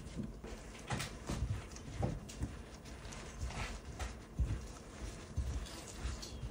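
Gloved hand mixing and kneading flour into butter and egg yolks in a glass bowl: irregular soft thumps of the hand pressing the mixture against the bowl, with light rustling of the flour.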